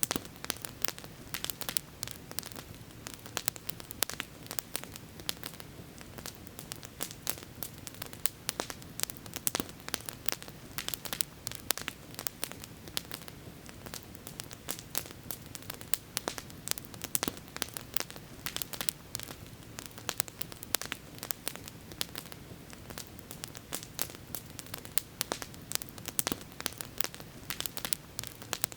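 Campfire crackling: wood burning with frequent sharp, irregular pops and snaps over a steady low hiss.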